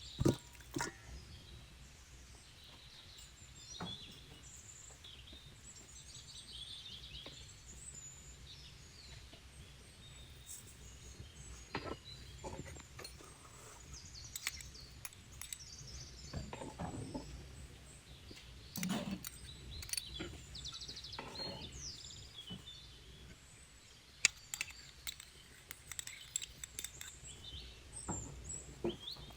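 Faint bird chirps over a steady low hum, with scattered light clicks and knocks.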